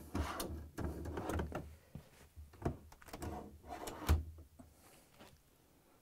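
Metal telescoping freezer drawer slide rails of an LG refrigerator being pulled out one after the other: two runs of sliding rattle, the second ending in a sharp click about four seconds in.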